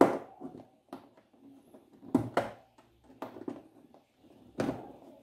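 Plastic latches of an LCD TV's front frame being pried and popped loose: about six sharp clicks and knocks of hard plastic, irregularly spaced.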